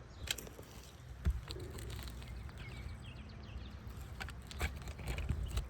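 Handling noise from a camera being set down and propped on asphalt shingles: scattered light knocks and clicks, the strongest about a second in, over wind rumbling on the microphone, with a few faint bird chirps.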